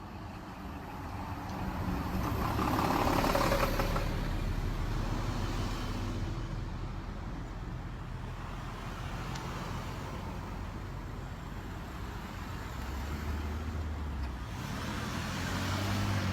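Road traffic: cars passing, one swelling and fading about two to four seconds in and another near the end, over a steady low engine hum.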